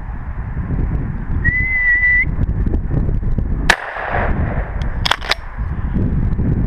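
A single shotgun shot about halfway through, a sharp crack with a short echo, followed about a second and a half later by two quick sharp clicks. Before the shot comes a short steady whistled note, and a low rustle of movement through brush runs underneath.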